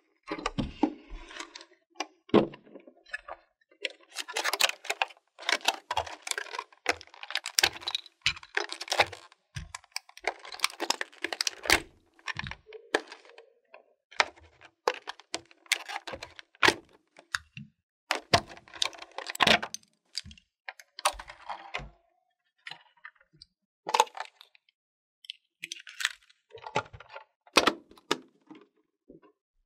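A clear plastic toy doctor kit carry case and its thin plastic blister tray being opened and handled: many sharp clicks, knocks and crackles of rigid plastic, with a short pause about two-thirds of the way through.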